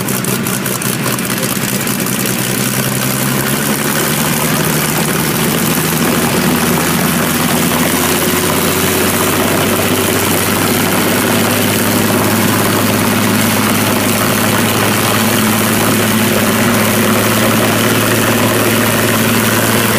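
Vintage propeller aircraft's piston engine running on the ground at a steady low speed. It picks up a little over the first several seconds, then runs evenly.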